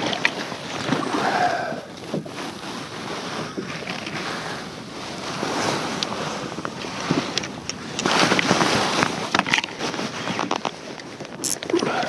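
Small waves lapping against a kayak hull, with light wind on the microphone and scattered small clicks and knocks from handling the rod and reel.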